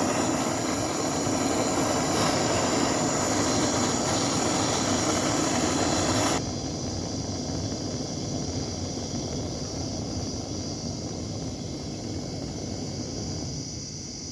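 A loud, steady rush of pressurised gas, as from a workshop gas torch or line, that cuts off suddenly about six seconds in, leaving a quieter steady hiss with a high thin band.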